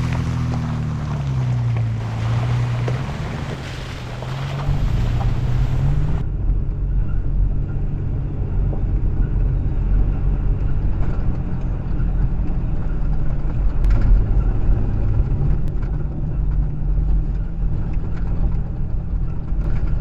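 Toyota FJ Cruiser's V6 engine and tyres while driving. The engine note falls and rises again over the first few seconds, then gives way about six seconds in to a steady deep road rumble with a faint engine tone.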